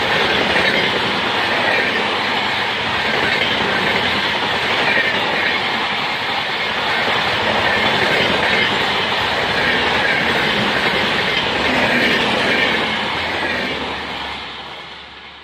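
LHB passenger coaches of an Indian express train passing close by at speed: a steady loud rush of wheels running on the rails. It fades away near the end as the last coach goes by.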